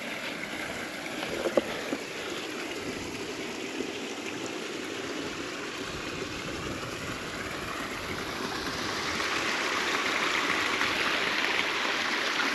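Stream running: a steady rush of water that grows louder over the last few seconds, with one brief knock about a second and a half in.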